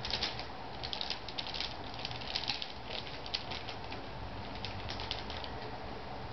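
Crinkling of a shiny plastic foil sheet on the floor as a cat steps across it: a string of short crackly rustles, thick at first, then a few more near the end.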